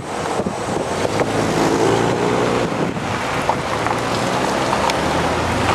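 Wind rushing over the microphone and the rumble of a car rolling slowly over a rough road, heard at an open car window.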